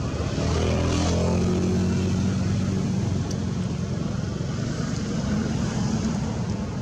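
A motor engine droning steadily, swelling about half a second in, with its pitch sliding down a little as it passes.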